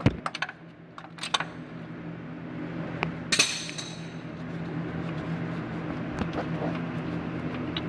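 Light metallic clicks and clinks, sharpest near the start and about three seconds in, as a starter mounting bolt is worked loose by hand in a car's engine bay. A steady low hum runs underneath.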